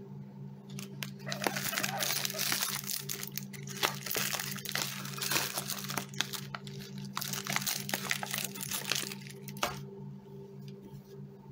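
Crinkling and rustling of a foil-lined plastic treat pouch being handled and opened, full of small crackles and clicks. It starts about a second in and dies down near the end.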